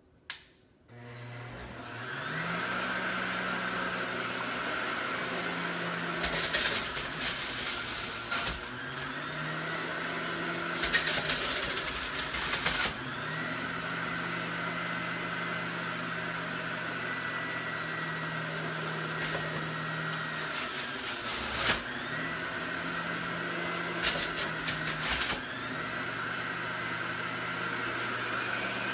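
Electric centrifugal juicer switched on, its motor spinning up and running with a steady whine. Several times it grinds louder and harsher for a second or two as grapefruit, carrot, celery and green apple are pushed down the feed chute and shredded.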